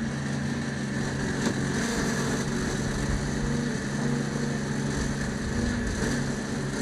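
Fishing boat's engine running steadily at an even speed.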